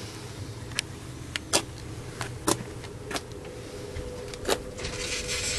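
Handling noises in a car's back seat: about six sharp clicks and knocks spread over a few seconds, then a short rustle near the end.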